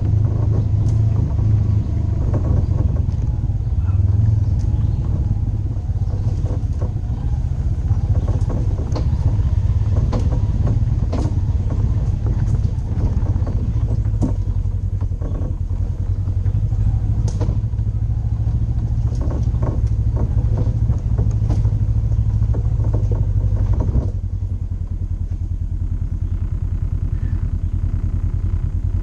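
Polaris RZR 900 side-by-side's twin-cylinder engine running steadily while driving a rough trail, with scattered knocks and rattles from the vehicle. The engine sound drops a little and quietens about four-fifths of the way through.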